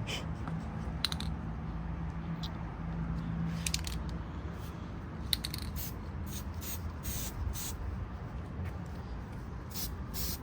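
Aerosol can of copper spray-on gasket sealant sprayed in a series of short hissing bursts, more of them in the second half.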